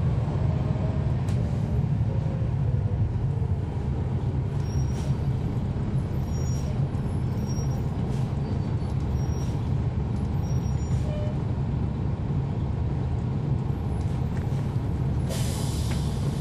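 Cummins ISL9 diesel engine of a 2011 NABI 40-SFW transit bus, heard from on board, running steadily with a deep even rumble. Near the end comes a short hiss of compressed air from the bus's air system.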